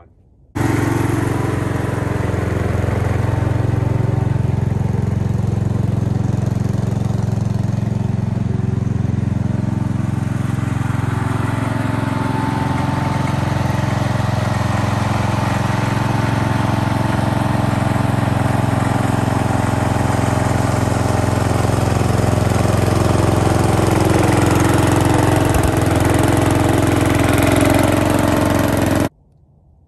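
A 52-year-old Sears garden tractor's engine running steadily while it tows a loaded firewood trailer through wet snow. It starts abruptly about half a second in and cuts off abruptly near the end.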